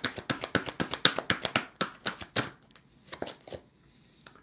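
A deck of tarot cards being hand-shuffled in an overhand shuffle: a rapid run of crisp card slaps, about seven a second, thinning out and stopping about three and a half seconds in, with one last tap of the deck near the end.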